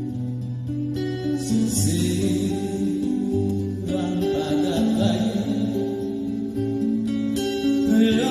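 Instrumental passage of a ballad with acoustic guitar, over long held bass notes that change every second or so.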